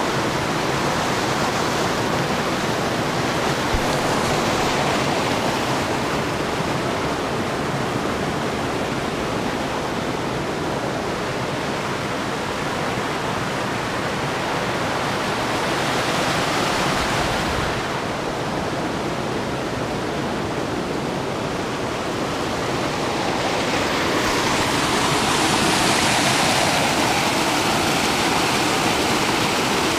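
Small mountain creek waterfall, water rushing and splashing over rocks into a pool as a steady hiss. It grows louder and brighter for a few seconds late on.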